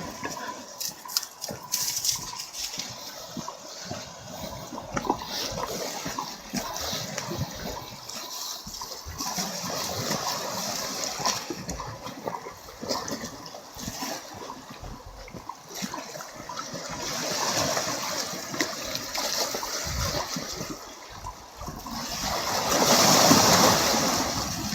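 Black Sea waves washing and splashing against the shore of a seafront promenade, a steady rush that swells several times, loudest just before the end.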